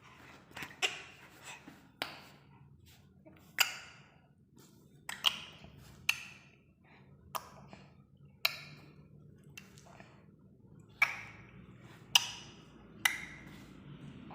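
A series of sharp clicks, about a dozen, spaced roughly a second apart.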